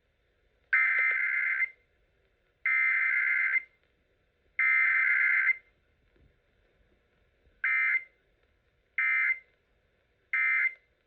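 Emergency Alert System SAME data tones sent for a Required Weekly Test: three header bursts of about a second each, spaced about a second apart, then three short end-of-message bursts.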